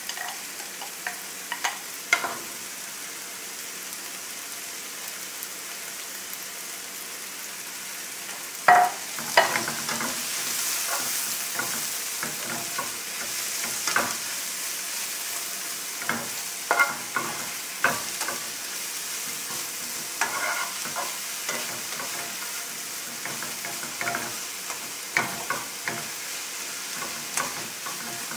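Spinach wilting in a frying pan with mushrooms and garlic, sizzling steadily while a spatula stirs it, scraping and tapping against the pan. A couple of loud knocks come about nine seconds in, and the sizzle grows louder for a few seconds after them.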